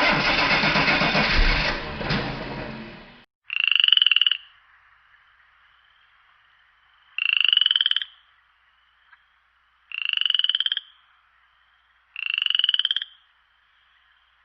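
Frog croaking: four pulsed, trilling calls, each about a second long and a few seconds apart, over a faint steady hiss. Before the first call, a loud noisy sound runs for about three seconds and stops abruptly.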